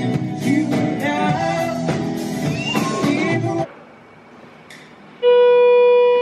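Live band playing with singing: acoustic and electric guitars, bass and drums under a lead vocal. It cuts off abruptly about three and a half seconds in. Near the end a loud, steady beep lasts about a second.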